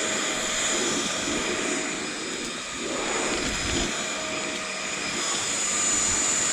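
LG CordZero Kompressor cordless stick vacuum running steadily, a high motor whine over the rush of air, as it vacuums up spilled rice and flour.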